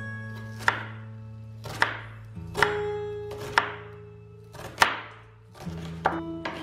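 Chef's knife chopping an onion on a wooden cutting board: six separate cuts, about one a second, each a sharp knock of the blade on the board. Acoustic guitar music plays underneath.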